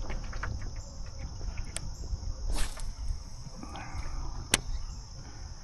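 Crickets chirring in a steady high-pitched drone. A brief rush of noise comes about two and a half seconds in, and a single sharp click about two seconds later.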